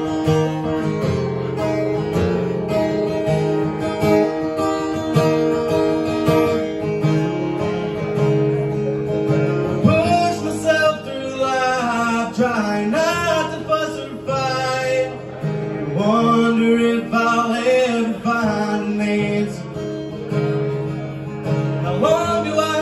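Acoustic guitar strummed live, with a man's singing voice coming in over it about ten seconds in.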